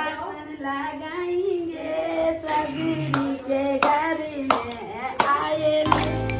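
A woman's voice singing a song while people clap along in time, about one clap every two-thirds of a second from a couple of seconds in. Near the end a recorded music track with a steady bass comes in.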